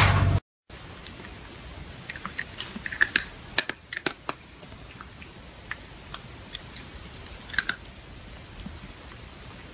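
A loud hum cuts off abruptly about half a second in. Then dry cat kibble clicks and rattles against a small ceramic bowl as a hand stirs it: scattered sharp clicks, a cluster in the middle and a few more later, over a steady hiss.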